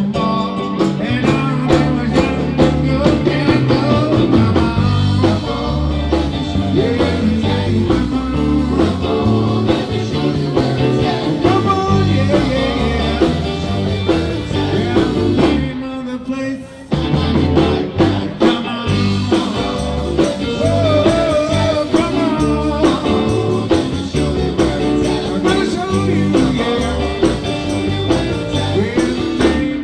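Live band playing through a PA, with electric guitar and keyboard over drums and bass. The band cuts out for about a second near the middle, then comes back in.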